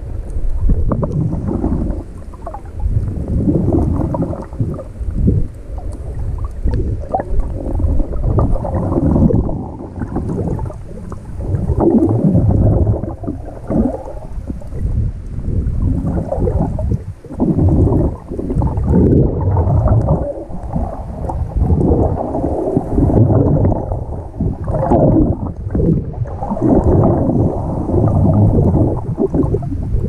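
Muffled underwater rumbling and gurgling of sea water surging over rocky shallows, picked up through a GoPro's waterproof housing. It is deep and dull and swells and ebbs unevenly.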